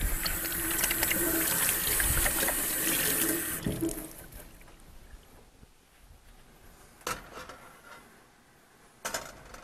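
Kitchen sink tap running while hands are washed under it, shutting off after about three and a half seconds. Two short knocks follow later.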